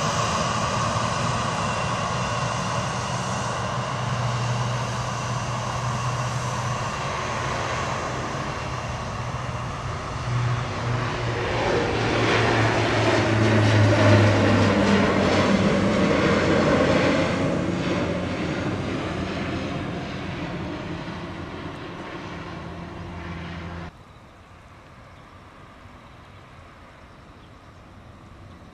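De Havilland Canada Dash 8-400 turboprop airliner taking off and climbing out, its two Pratt & Whitney PW150A turboprops and six-bladed propellers at takeoff power giving a steady low propeller drone with a higher whine above it. The sound swells as the aircraft climbs past, the pitch of the whine sliding down, then drops off sharply to a faint hum near the end.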